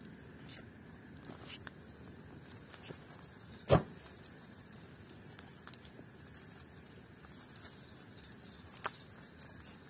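A few faint, scattered clicks and rustles over a steady low hiss, with one sharper knock a little under four seconds in.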